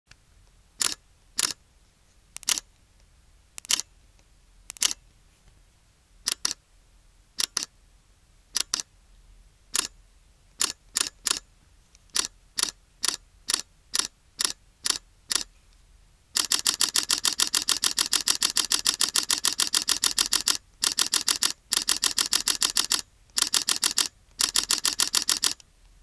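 Camera shutter firing single frames at uneven intervals, at first a second or so apart and then quicker. About sixteen seconds in it switches to continuous rapid-fire bursts of shutter clicks, broken by several short pauses.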